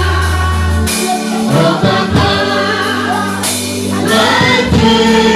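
Gospel worship music: a choir singing a sustained held phrase over keyboard and bass accompaniment.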